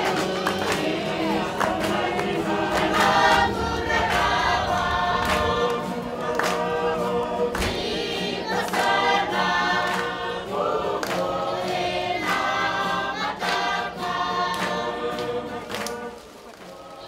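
A choir singing together in harmony, several voices at once, fading down near the end.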